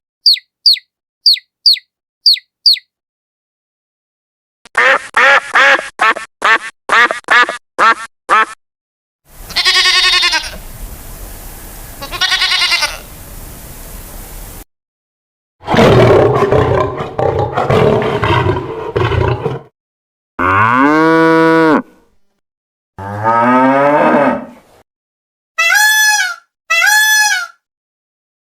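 A run of different animal calls, one after another with short silences between them. It opens with quick high chirps, then a rapid series of short calls, then several longer, lower calls whose pitch bends, and ends with a few repeated arched calls.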